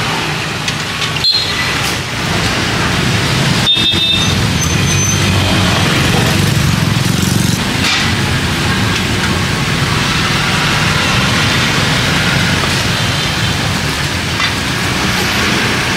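Steady street traffic noise: the engines of passing vehicles running, a low rumble under a general hiss.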